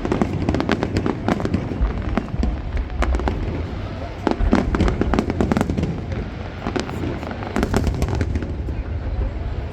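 Aerial fireworks display: many rapid sharp bangs and crackles over a continuous low rumble, thickest about a second in, around three seconds and near the end.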